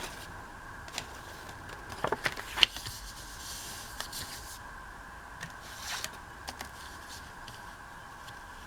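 Paper craft materials being handled on a table: scattered light taps and clicks, with a short rustle about three and a half seconds in, over a faint steady hum.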